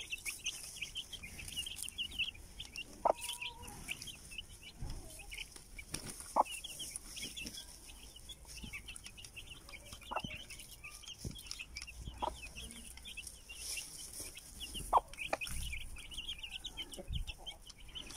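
A brood of young chicks peeping continuously in short, high chirps, with a few sharp taps now and then.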